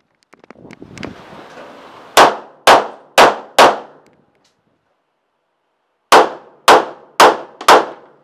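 Pistol fired in two quick strings of four shots, about half a second between shots, with a rustle of movement before the first string.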